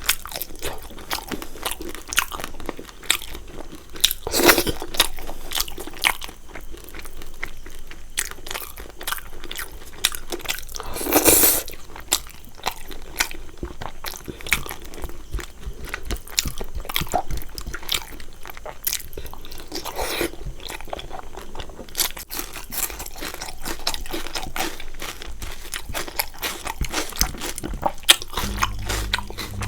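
Close-miked eating of a rice-and-curry meal: steady chewing with a dense run of small crunches and mouth clicks, and two louder, longer sounds about four and eleven seconds in. A low steady hum starts near the end.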